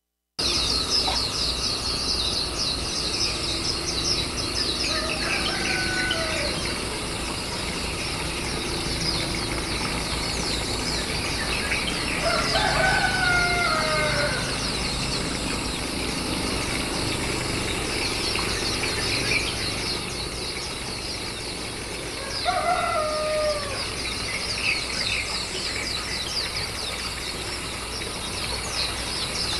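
Outdoor ambience of a dense, steady, high shrill chirring from insects, with three drawn-out falling calls from a larger bird, each about a second or two long, about 5, 12 and 22 seconds in.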